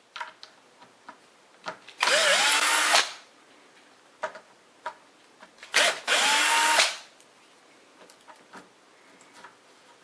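Cordless drill/driver backing out the two screws of an old deadbolt latch faceplate: two short runs of about a second each, the motor pitch rising as it spins up, with small clicks of handling between.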